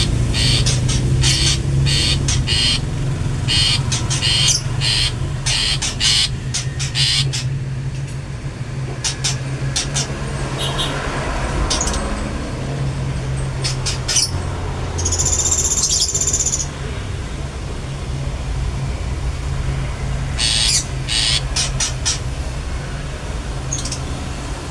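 Long-tailed shrike calling: a fast run of short, sharp, repeated notes over the first several seconds, then scattered notes, one longer buzzy call partway through and another quick run near the end. A steady low hum runs underneath.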